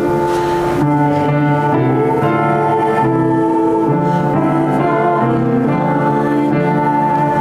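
Instrumental keyboard music with held notes and chords that change about once a second.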